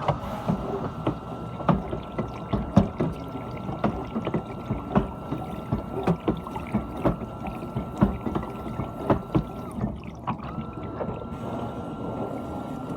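GE dishwasher running: water sloshing and spraying inside the tub, with a steady high pump whine and irregular knocks of water striking. It starts abruptly, and the whine drops out briefly about ten seconds in, then returns.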